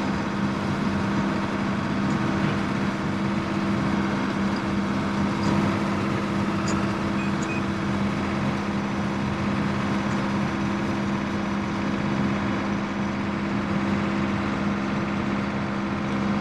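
Combine harvester running while harvesting corn: a steady mechanical drone with a constant low hum.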